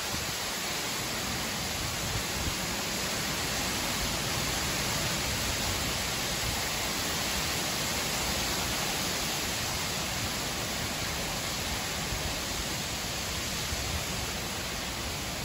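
Heavy rainstorm downpour: a steady, even rush of rain with no breaks.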